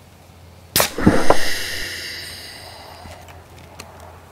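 A homemade pneumatic air cannon firing once: a sharp bang a little under a second in, then a rush of air hissing out that fades away over about two seconds.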